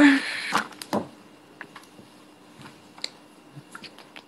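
A short rustle, then a few scattered faint clicks in a quiet room.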